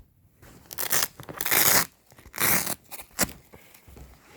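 Velcro hook-and-loop fastening on a massage chair's seat pad and hip airbag being pulled apart in about four short, rasping rips.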